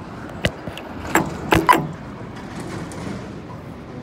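A cluster of sharp knocks and clicks about a second in, over street noise. Behind them, a pedestrian crossing push-button gives its short locator beep about every two seconds.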